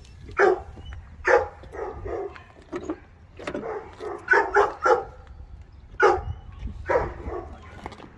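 Big dogs barking repeatedly, a bark every second or so, some in quick pairs.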